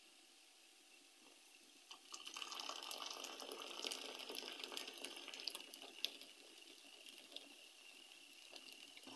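Hot tea poured from a stainless steel kettle into a ceramic cup, the cup filling; the pour starts about two seconds in and is loudest soon after, easing a little toward the end.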